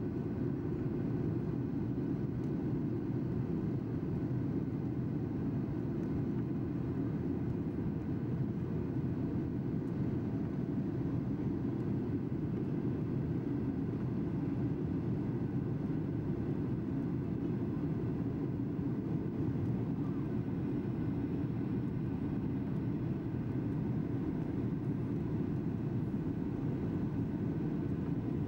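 Steady low rumble of engine and airflow noise inside the cabin of a Boeing 737-800, heard from a window seat over the wing as the jet descends on approach with its flaps extended.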